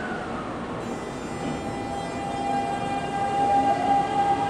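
Seibu 6000 series electric train pulling away from the platform. Its inverter-driven traction motors whine on a steady tone with many overtones, then the whine rises in pitch and grows louder near the end as the train gathers speed.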